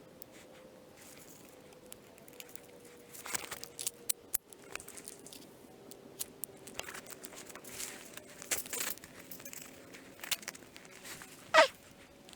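Rustling and crunching with scattered sharp clicks, typical of moving through brush. Near the end comes one brief, loud squeal that falls steeply in pitch.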